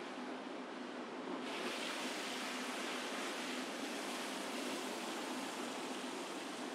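Steady road and traffic noise of a car driving through a city street, an even hiss that turns brighter and a little louder about a second and a half in.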